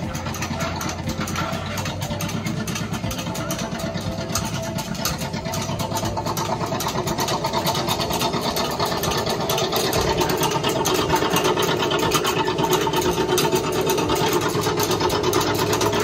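An engine idling steadily with a fast, even pulse and a low hum throughout.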